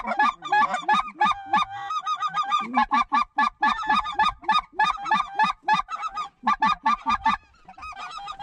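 Geese honking, a rapid, even run of loud clucks and honks at about five a second that thins out and goes fainter about seven and a half seconds in.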